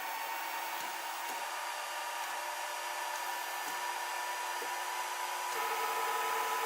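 Kossel delta 3D printer running a test print: a steady whir with several held tones from its motors and fans, the tones shifting to a new pitch about five and a half seconds in.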